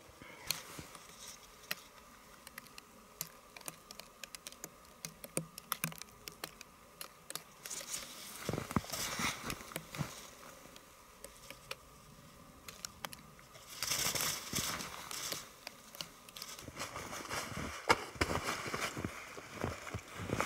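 Snow crunching in irregular small steps and clicks, with a louder rustle about 14 seconds in.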